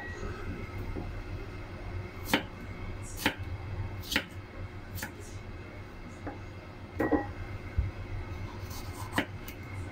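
A white ceramic knife slicing tomatoes on a wooden chopping board. The blade knocks sharply on the board several times, mostly about a second apart, with one duller clunk, over a low steady background hum.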